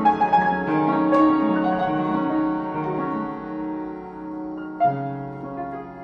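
Film score music led by piano, with held notes changing every second or so; a new chord sounds about five seconds in.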